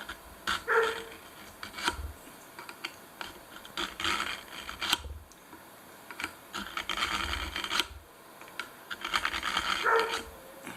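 Penknife blade drawn through the carbide slot of a pocket knife sharpener: several separate rasping strokes, each about a second long, with sharp clicks between them.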